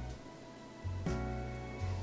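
Background music: gentle plucked-string instrumental with a bass line, notes sounding about a second apart.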